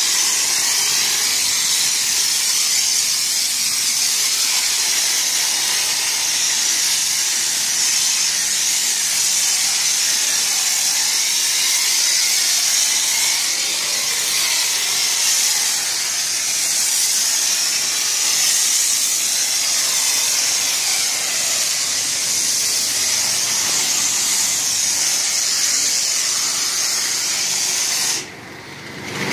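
Self-service car wash foam lance spraying active foam onto a car: a steady, loud hiss that cuts out for about a second near the end, then starts again.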